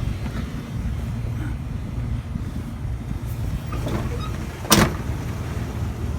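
Steady low rumble of a vehicle running, with one sharp knock about three-quarters of the way through, like a car door or latch.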